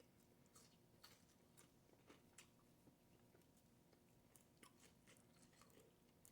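Faint chewing and biting of food, with soft irregular mouth clicks and small crunches, about one or two a second.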